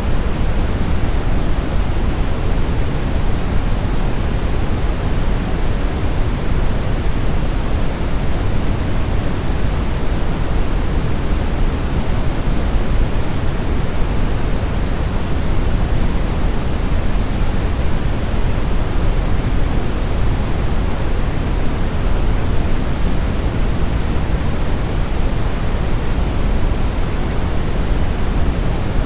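Steady synthetic brown noise: an unbroken, even hiss weighted heavily toward the deep end, with no events or changes.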